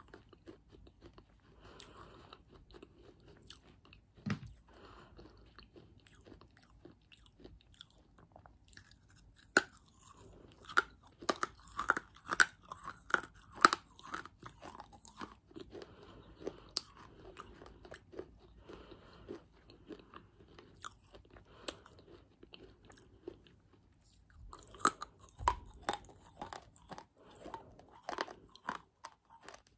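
Close-miked chewing of baked clay pieces: soft chewing at first, then runs of sharp, crisp crunches from about ten seconds in and again near the end, with quieter chewing between.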